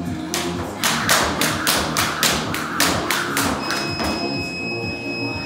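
Jump-rope double unders on a plywood floor: quick even slaps and landings about three a second. They stop a little past halfway as a gym interval timer gives one long electronic beep at the 15-minute mark, ending the workout.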